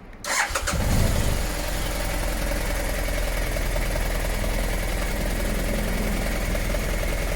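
BMW F700GS 798 cc parallel-twin engine, already warm, started on the electric starter: it catches within a second, revs briefly, then settles into a steady idle. The owner says the idle is not smooth, with a misfire from time to time.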